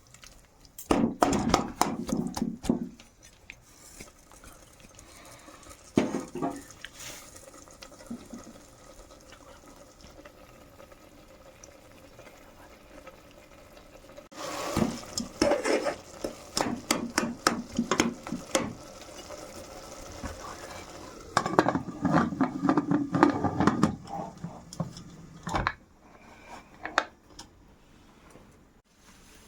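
Metal cookware clattering: a spoon scraping and knocking against a pot in several bouts of stirring and handling, with quiet stretches between.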